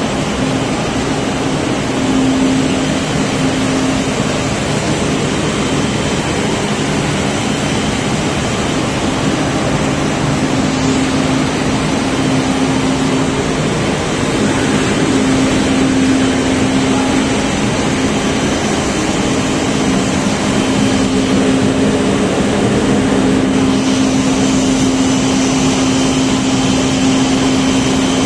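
Chocolate-making machinery running steadily under test: a loud, even machine noise with a constant hum.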